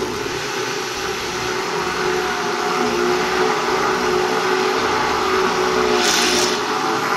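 Electric hand (immersion) blender switched on and running steadily, whipping fresh cream with condensed milk in a glass bowl; a steady motor whine with a brief hissier stretch about six seconds in.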